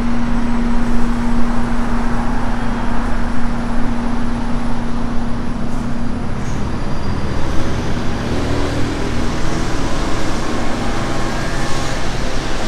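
Wind buffeting the microphone over road traffic, with the steady hum of a double-decker bus idling alongside, which fades about halfway through.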